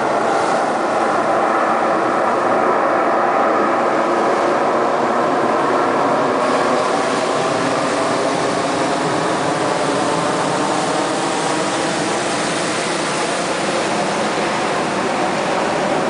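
Steady roar of breaking ocean surf and churning whitewater, easing slightly about six seconds in.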